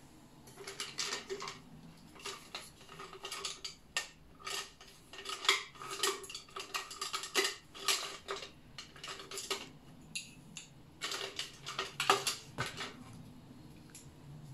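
Many small clinks and taps of paint jars and a brush being handled in irregular clusters, as gouache paints are picked out and mixed, with a short lull a little after ten seconds.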